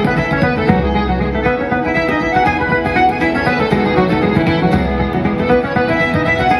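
Irish traditional band playing a reel live: fiddle and accordion carry the fast melody over tenor banjo, guitar and bodhrán rhythm.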